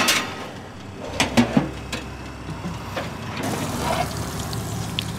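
Metal pizza pan clattering against a toaster oven's wire rack as it slides in and out, a sharp clank at the start and then a few lighter knocks and scrapes.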